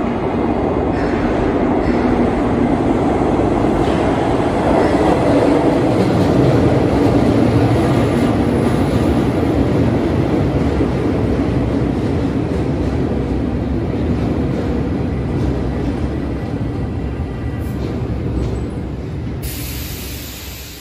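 Milan M1 metro train pulling into an underground station: a steady rumble of wheels and running gear that swells as the train comes in alongside the platform, then eases off as it slows near the end.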